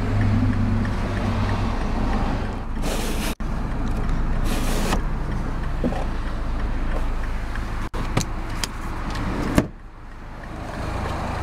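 Steady low hum in the cabin of a 2009 Mini Cooper Clubman S, with rustling and a few sharp clicks as interior fittings such as the roof grab handle and the seat are handled; the loudest click comes near the end, after which it is quieter.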